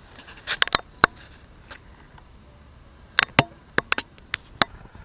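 Scattered sharp clicks and taps, in a cluster about a second in and another from about three to four and a half seconds in: handling noise of a caught pejerrey and its fishing line and rig held close to the microphone.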